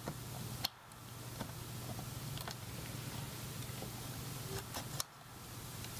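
A few small, sharp clicks and taps as the retaining clips of a 2012 Mac Mini's RAM module are spread and the memory stick is slid out of its slot, over a steady low hum.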